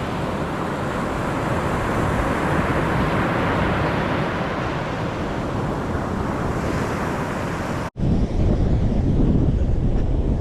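Surf washing on a beach under a steady wind, then, after a sudden cut nearly 8 seconds in, strong wind buffeting the microphone in gusts over the surf.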